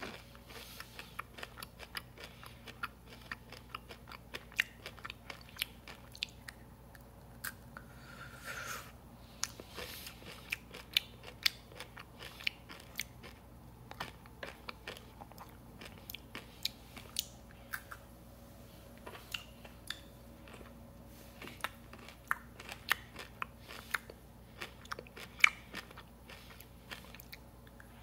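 Close-up chewing of Peanut Butter Mega M&M's: the hard candy shell crunching between the teeth in many quick, irregular crackles.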